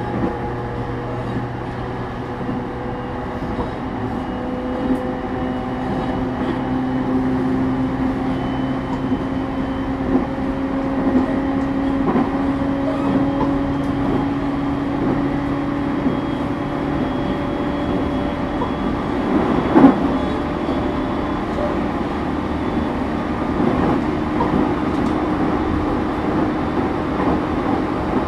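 JR East E231 series suburban train heard from inside motor car MoHa E231-1095, running between stations: wheel and rail rumble with the Hitachi IGBT-VVVF traction motor whine rising slowly in pitch as the train gathers speed, then fading. One sharp knock about twenty seconds in.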